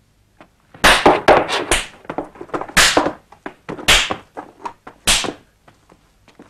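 Sharp strikes of a beating: a quick flurry of about five blows about a second in, then three single blows roughly a second apart.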